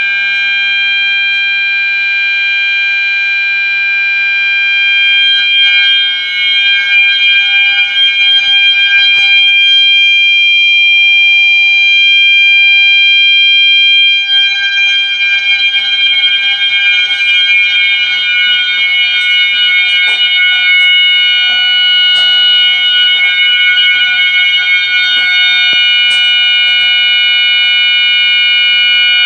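Two System Sensor mass-notification horn strobes (multi-tone sounder strobes) sounding together with a loud, steady, high-pitched electronic tone. About halfway through, the tones shift slightly lower.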